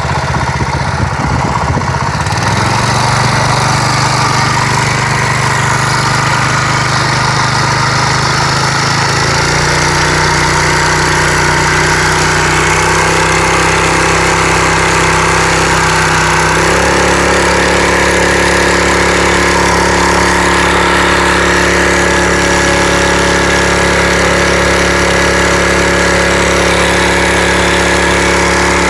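A 6.5 hp outboard motor running steadily, its engine speed stepping up in three stages, about two, nine and seventeen seconds in, then holding at the higher speed, with a steady hiss over it.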